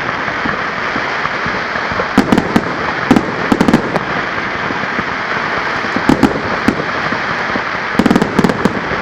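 Fireworks going off: clusters of sharp crackling pops every second or two over a continuous hissing crackle.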